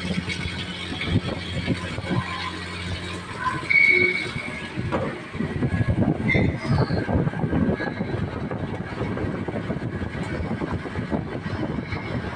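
Machine-shop machinery running: a steady low hum for the first few seconds, then irregular clattering noise.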